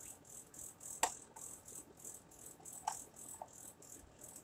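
Two light clicks from handling a small plastic mini omelet maker, one about a second in and one near three seconds, as its lid and body are moved. Underneath runs a faint, fast, even rhythmic hiss, about three to four pulses a second, like a shaker in quiet background music.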